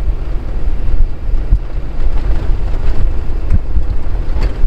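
Car driving over an unpaved dirt road: a heavy, steady rumble of tyres and suspension with a few sharp bumps, and wind buffeting the microphone.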